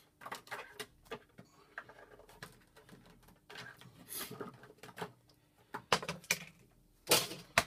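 Clear plastic card being cut and handled on a workbench: a run of irregular scratchy strokes and clicks, with the loudest strokes near the end.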